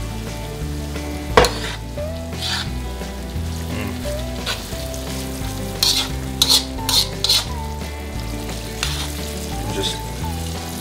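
Flour-dredged wild hog ham frying in hot olive oil with onion and ginger, sizzling steadily. A metal spoon knocks and scrapes against the pan several times, sharpest about a second and a half in and again in a cluster around six to seven seconds.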